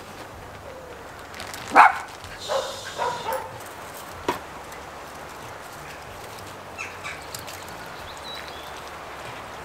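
A dog barking, a short run of barks about two to three seconds in, the first the loudest, with two fainter ones about seven seconds in.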